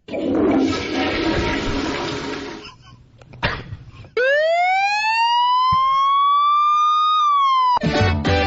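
A run of comedy sound effects: a noisy splashing wash for nearly three seconds, a single sharp knock, then a siren-like wail that rises in pitch for about three seconds, dips and cuts off.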